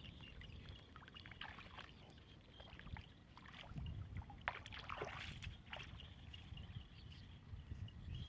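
Faint splashing and sloshing of water with a few light knocks, over a low wind rumble.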